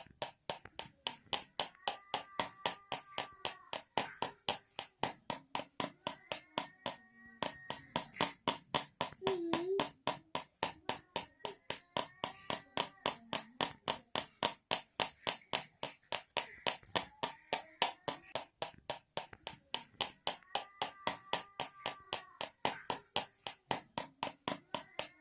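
Homemade rattle made of two tins shaken in a steady rhythm: sharp metallic rattling strokes about three to four times a second.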